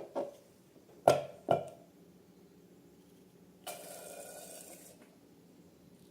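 Slime-making handling sounds: two sharp plops or taps about half a second apart, then a hiss lasting a little over a second.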